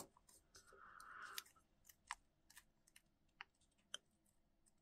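Near silence with faint handling noise: a soft rustle of blue painter's masking tape being pressed around a small die-cast car body about a second in, and a few faint scattered ticks.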